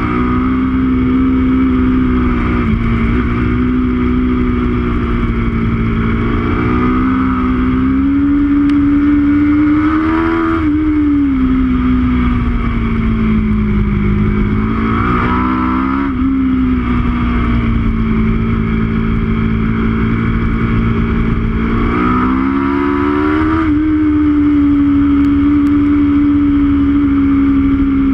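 Aprilia RSV4's V4 engine running hard, heard from on board the bike, its pitch climbing and falling back three times as the rider works the throttle through the corners, with wind rush underneath.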